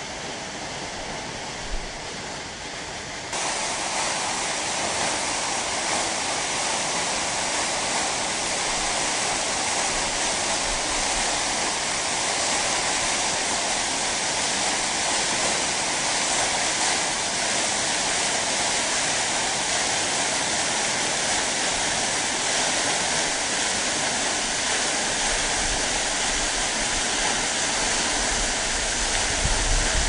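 Waterfall: falling water rushing and splashing in a steady, dense wash of noise. It jumps louder and brighter about three seconds in, and a low rumble joins it near the end.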